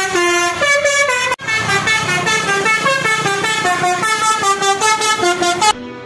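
Bus 'basuri' telolet horn, a multi-note musical air horn, playing a quick tune of stepped notes, each held a fraction of a second, over a low rumble. The tune cuts off abruptly about a second and a half in, starts again at once, and stops suddenly near the end.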